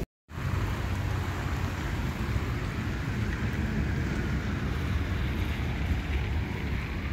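Steady outdoor street ambience: low traffic rumble with wind on the microphone, after a brief dropout right at the start.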